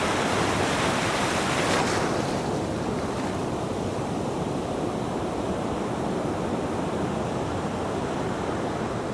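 Sea waves breaking on a beach: a full rush of surf for the first two seconds, then dying back to a softer, duller wash.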